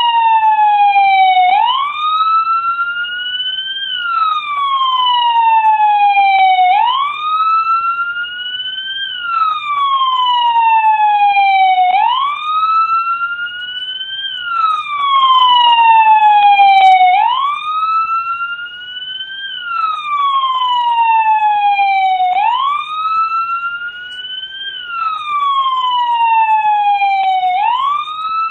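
American police car siren in wail mode: the pitch sweeps up quickly, then falls slowly, repeating about every five seconds.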